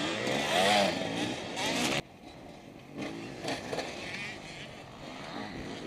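Dirt-bike engine revving up and down, loud at first, then dropping suddenly about two seconds in to a quieter engine sound that keeps rising and falling.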